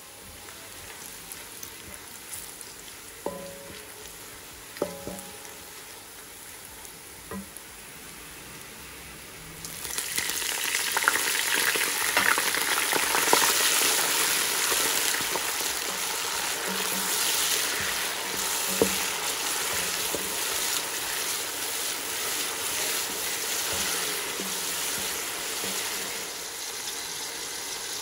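Sliced onions frying in hot oil in a pot as they turn golden brown, stirred with a wooden spoon: a steady sizzle with a few light knocks in the first several seconds. About ten seconds in the sizzle becomes much louder and fuller.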